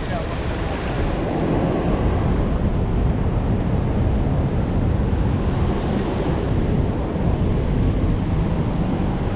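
Loud, steady rush of water pouring out of a dam's release gates, with wind buffeting the microphone.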